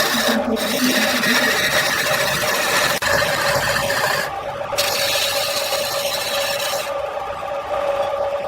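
Wood lathe with a turning tool cutting into the spinning wood: a continuous rasping scrape over the steady hum of the lathe. The cutting noise breaks off briefly a few times as the tool lifts from the wood.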